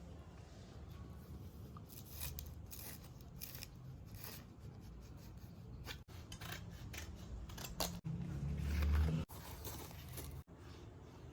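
Scissors cutting material in a run of quick snips. Near the end comes a louder, low bump lasting about a second.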